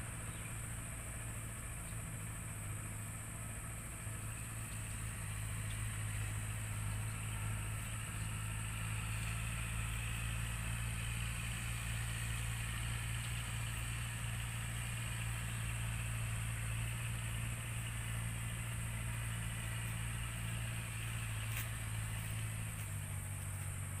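An engine running steadily at idle, a constant low hum whose tone changes slightly near the end.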